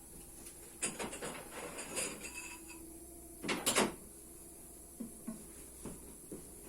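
Rummaging among workshop tools and parts: a run of knocks and rustles, a louder clatter about three and a half seconds in, then a few light clicks.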